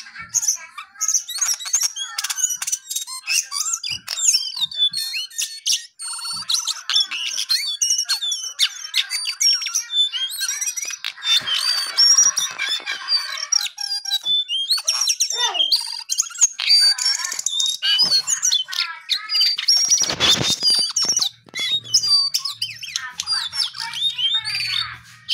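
Caged male jongkangan bird singing: a rapid, nearly unbroken run of varied high chirps, squawks and whistles. A brief noise reaching down to low pitches comes about twenty seconds in.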